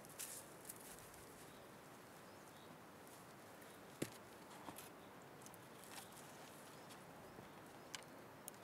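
Near-quiet outdoor air with a few scattered knocks and scrapes of boots and hands against a tree trunk while climbing it, the sharpest knock about four seconds in.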